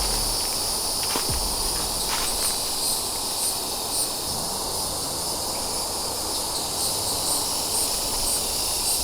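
Steady, high-pitched chorus of insects, a continuous buzz with a faint, regular pulsing in its upper tone.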